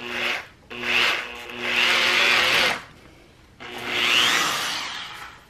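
Electric drill with a twist bit boring a hole through a wooden board, wood chips spraying around the bit. The motor runs in three bursts with short pauses between: a short one, then two longer runs.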